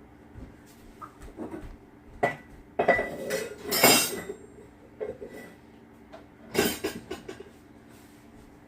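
Metal utensils clinking and clattering against each other in a few separate bursts, as in rummaging through cutlery; the loudest jangle comes about three to four seconds in.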